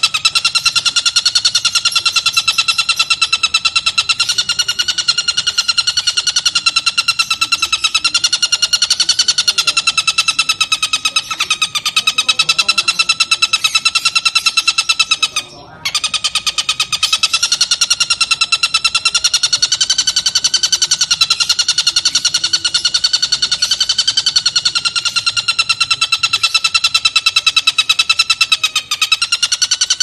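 Oriental dollarbird (tengkek buto) giving its long, unbroken cackling chatter (ngekek panjang), a fast run of harsh repeated notes that wavers slightly in pitch, with one short break about halfway through.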